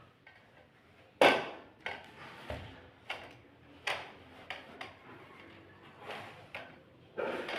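Irregular knocks and clunks of hard objects being handled and set down, about ten over several seconds, the loudest about a second in.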